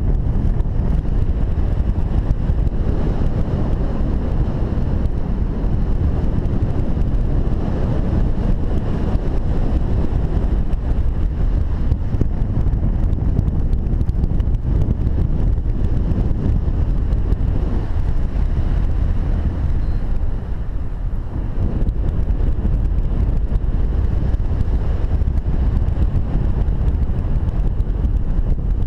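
Steady rush of airflow buffeting the microphone of a paraglider pilot's camera in flight, a loud low-pitched wind noise.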